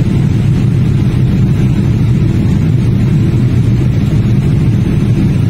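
Steady cabin noise of a jet airliner in flight, heard inside the cabin: a loud, even, low rumble of engines and rushing air that does not change.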